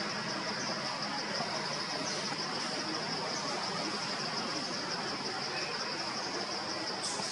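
Steady, high-pitched insect chorus at night, an even fast trill held at one pitch, over a constant hiss.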